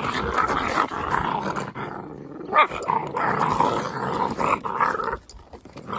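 Dalmatian puppies vocalising as they play together, a near-continuous rough yapping noise with brief pauses about two seconds in and near the end.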